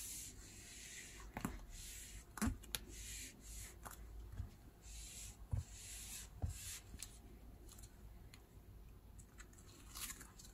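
Faint repeated rubbing and swishing as a small bottle is pressed and rubbed over clear plastic stamps lying on a silicone baking tray, with a few light clicks and taps in between.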